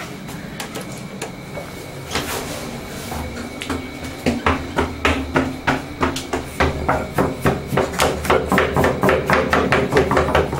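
Repeated sharp knocks, like hammer blows, starting about four seconds in at roughly three a second and growing louder and a little faster toward the end, over a low steady hum.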